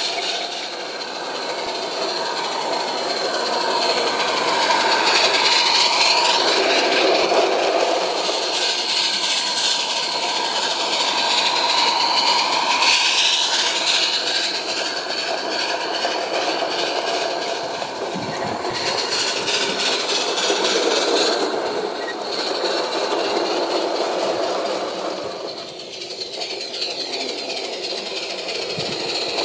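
Small metal wheels of a garden-railway goods train rolling along the track: a continuous rattling run that swells and eases as the wagons pass, with a brief lull near the end.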